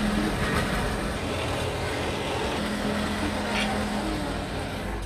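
Electric pillar drill press running with a steady hum while drilling a truck brake shoe, over a constant mechanical background noise. A short metallic click comes about three and a half seconds in.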